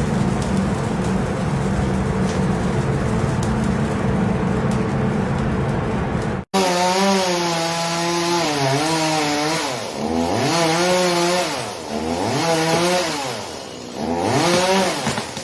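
A steady rushing noise, then after an abrupt cut a chainsaw running at high revs, its engine note falling and climbing back again about four times.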